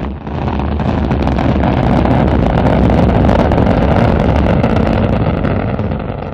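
Rocket engine firing, a steady deep noise that dips briefly at the start and fades toward the end.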